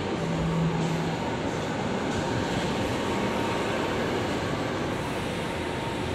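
Steady noise of car traffic passing on a busy multi-lane street, with a brief low hum about half a second in.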